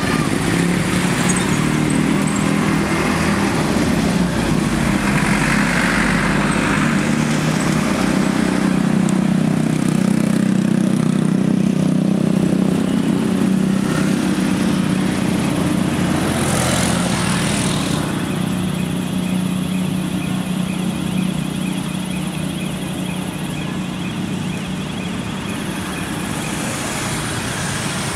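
Heavy diesel engine of the box-girder transporter and launching machinery running steadily: a low, even drone. The higher part of the sound changes a little about two-thirds in.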